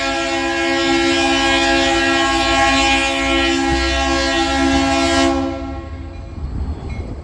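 A KCS diesel locomotive's air horn sounds one long, steady chord, then cuts off about five seconds in. The low rumble of the moving train is left behind it.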